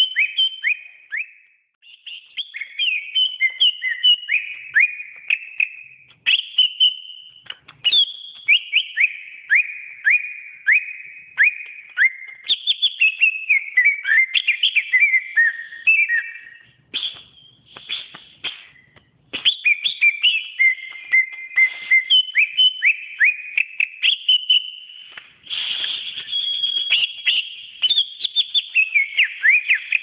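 Cucak ijo (green leafbird) singing a long, fast, varied song of sharp falling whistles and chattering phrases, broken by a few short pauses.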